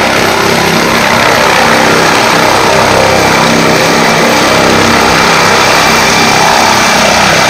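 Helicopter lifting off and climbing, its turbine engines and rotor running loud and steady, with a thin high turbine whine over the rotor noise.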